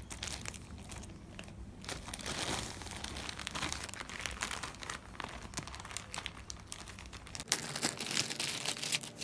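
Plastic courier mailer being cut open with scissors, then plastic packaging crinkling and rustling in irregular crackles as the wrapped contents are pulled out.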